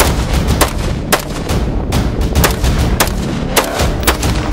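Scoped AR-style semi-automatic rifle fired in a rapid string, about two sharp shots a second, each with a short echo.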